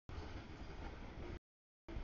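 Freight cars of a mixed freight train rolling past on the rails, a steady low rumble with wheel noise. The sound cuts out to dead silence for about half a second just past the middle, a dropout in the audio feed.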